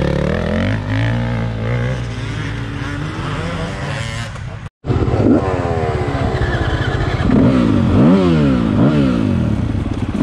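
Dirt bike engines running. First one runs steadily with its note sliding lower. Then, after an abrupt cut, a Yamaha dirt bike's engine idles and is blipped several times, its pitch rising and falling quickly with each blip.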